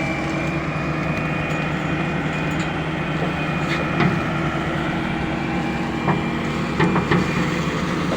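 Heavy diesel construction machinery running steadily, with a few sharp metallic knocks about four seconds in and a cluster of three more near the end.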